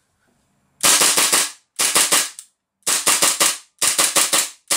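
Tokyo Marui Hi-Capa 4.3 gas blowback airsoft pistol firing in rapid strings of about five shots each, four strings and a fifth starting near the end; the pistol works.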